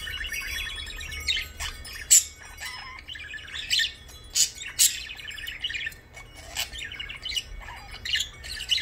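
Budgerigar chattering and warbling: a steady run of quick chirps and trills, broken by several sharp, louder chirps.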